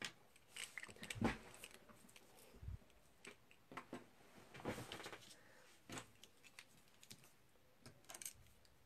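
Faint, irregular small clicks and taps of a metal cutting die, a pick tool and cardstock being handled on a work table.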